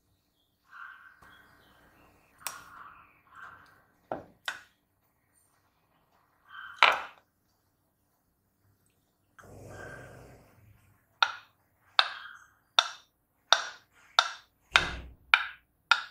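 A series of about eight sharp knocks, getting quicker toward the end, after a few scattered clicks and a brief rustle.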